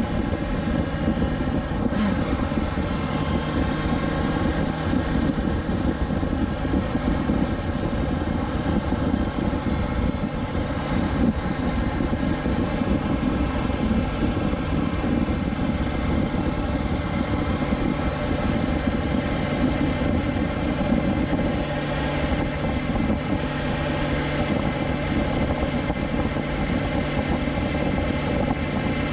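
2020 BMW S1000XR's inline-four engine running at a steady cruise, with rushing noise underneath; the engine note shifts slightly about two-thirds of the way through.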